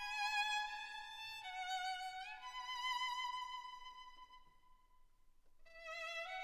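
Classical background music: a melody in long held notes that dies away to near quiet about five seconds in, then picks up again.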